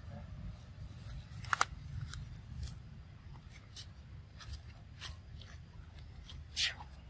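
Long-tailed macaque biting and chewing a ripe mango: scattered wet smacks and clicks of eating. The loudest are a sharp double click about a second and a half in and a longer wet squelch near the end, over a low steady rumble.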